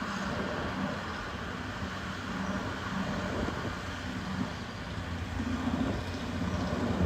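Diesel engine of heavy earthmoving equipment running steadily, with a louder low thump at the very end.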